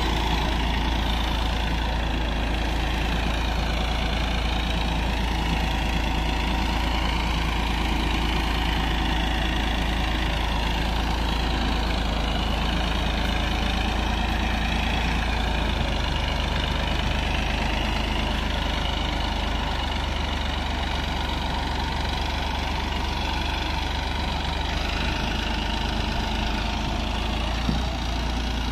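Massey Ferguson 9500 tractor's diesel engine running steadily under load while pulling a plough through dry soil, with a deep rumble underneath. A short knock sounds near the end.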